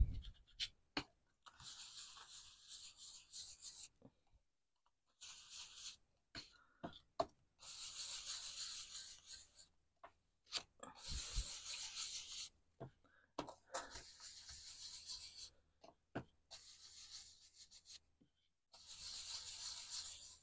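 An ink blending tool is rubbed over a plastic stencil on card, applying tea dye oxide ink. It comes in repeated bursts of scratchy rubbing, each a second or two long, with a few sharp clicks in the gaps.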